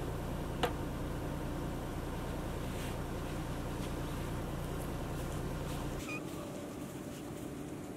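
A steady low rumble that cuts off suddenly about six seconds in, with one sharp click a little over half a second in.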